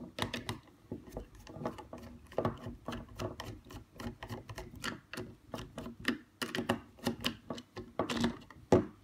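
Screwdriver turning small screws out of a MIP toy robot's plastic battery cover, a busy uneven run of small clicks and plastic taps, several a second.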